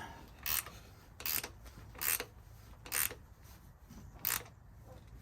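Ratchet wrench cranking a bolt down in short strokes, about one a second, five in all, each a brief rasping click of the pawl. The bolt is drawing a knurled threaded insert tight into the door pillar so that the knurls grab.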